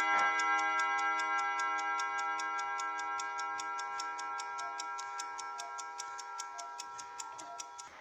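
The chime rods of a 1970 Schatz triple-chime mantel clock ring on after its last stroke, several tones together, fading slowly and evenly, while the movement's escapement ticks at a rapid, even rate.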